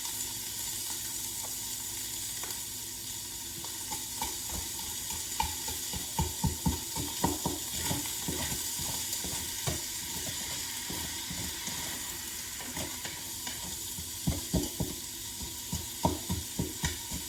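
Frozen chopped onion and plant-based sausage sizzling in an Instant Pot on the sauté setting, with a utensil knocking and scraping against the pot as they are stirred and broken up.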